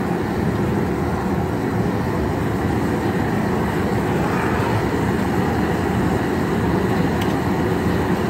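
High-pressure propane burner under a seafood-boil pot, running with a steady rushing noise that does not change.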